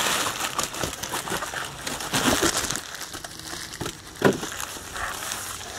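Bubble wrap and packing being rustled and crinkled by hand as a part is unwrapped, busiest in the first half and quieter after, with one sharp click a little past four seconds in.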